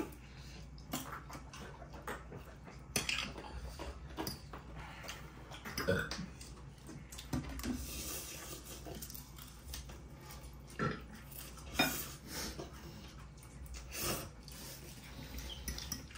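Forks and spoons clinking and scraping against ceramic plates and a bowl while people eat: irregular light clinks, with a few louder knocks now and then.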